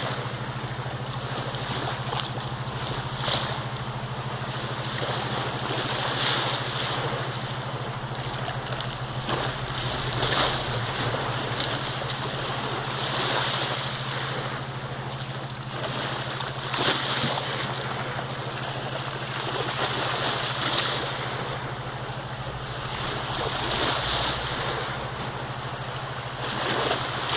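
A German shepherd's paws scraping and digging in wet beach sand, with small waves washing onto the shore every few seconds over a steady low hum.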